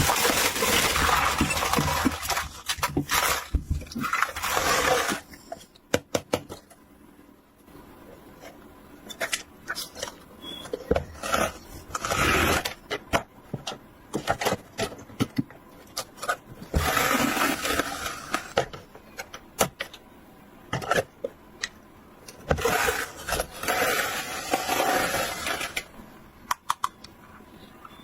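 Toy packaging being handled: plastic and paper rustling and crinkling in several stretches of a second or more, with many sharp clicks of small plastic toy pieces, such as the toy dinner set's dishes, being knocked together and set down.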